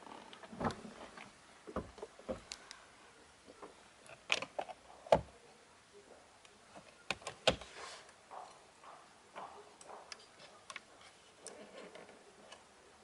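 Plastic clicks and knocks from car interior trim being handled: the glovebox lid dropping open with a few hard knocks, the loudest a little past the middle. Near the end come small clicks, which the stills tie to the rotary headlight switch being turned.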